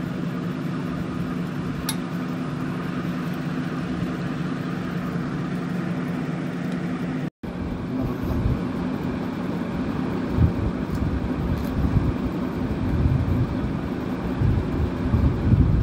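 A steady low mechanical hum, cut off for an instant about seven seconds in. After the cut, soft irregular low bumps of handling noise sit over the hum.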